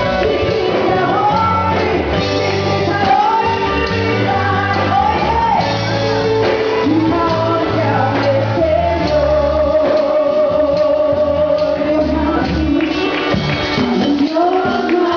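Live church band playing an evangelical worship song, with a lead voice singing held, wavering notes over bass and drums.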